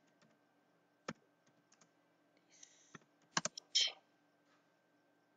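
Computer keyboard keystrokes as text is typed into an editor: a few sparse taps, then a quick run of keys about three and a half seconds in, followed by a brief hiss.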